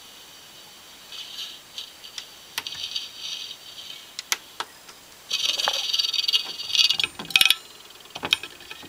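Seagate hard drive's voice-coil head actuator driven from an amplifier with a 1 Hz signal: scattered sharp clicks and several bursts of high-pitched buzzing rattle, the longest running about a second and a half from about five seconds in. The head arm keeps sticking on its parking magnet instead of swinging freely.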